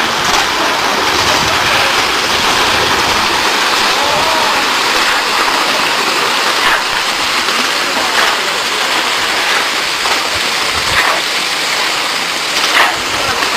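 Muddy flash-flood water rushing steadily down a rocky gully, with a few short knocks through it.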